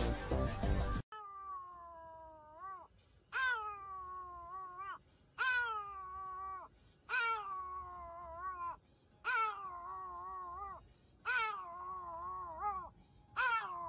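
Music for about a second, then a Pomeranian howling: seven long howls about two seconds apart, each sliding down from a high start, holding, and turning upward at the end.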